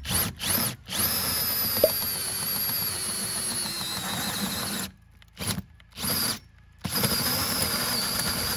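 Cordless drill driving a hole saw through a camper's aluminium wall to enlarge the existing inlet hole. It runs in short trigger bursts, then a steady run of about four seconds whose whine sags a little under load, stops, gives two short bursts, and runs steadily again from about seven seconds in.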